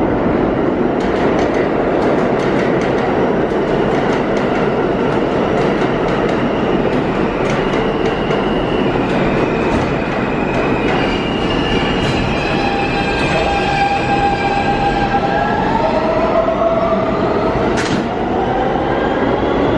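An R160 New York City subway train pulls out of the station and gathers speed with a steady loud rumble. Its wheels clack over the rail joints, and from about halfway through a whine from the traction motors rises in pitch as it accelerates.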